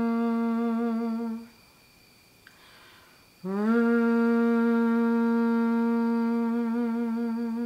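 A woman singing sustained notes through a paper straw in a semi-occluded vocal tract exercise (straw phonation), a steady hum-like tone. The first note is held and breaks off about a second and a half in; after a short pause a second note slides up into the same pitch and is held to the end, with a slight waver as each note closes.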